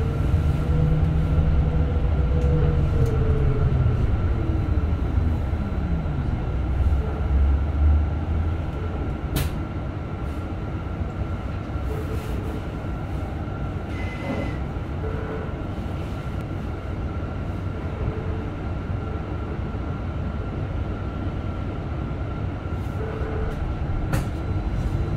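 Heard from inside the cabin, the traction-motor whine of a VDL Citea SLF 120 Electric city bus falls steadily in pitch as the bus slows to a halt. It then stands with a steady electrical hum and a few clicks, and a short high beep sounds about halfway through. Near the end the motor whine begins to rise again as the bus pulls away.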